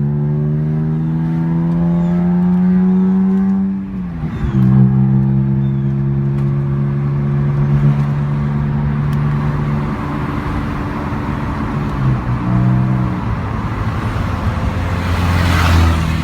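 BMW E46 M3's S54 straight-six engine and exhaust under way, revs climbing steadily, then dropping sharply about four seconds in and holding fairly steady afterwards, with another brief dip near the end. The exhaust is suspected by the owner of a leak at section 1.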